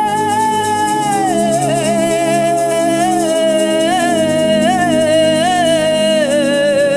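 Gospel worship music: a lead voice holds long wordless notes, sliding down about a second in and then wavering in short quavering turns, over a sustained keyboard pad.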